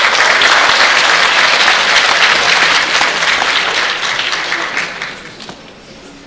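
A large audience applauding, a dense spatter of many hands clapping that fades away about five seconds in.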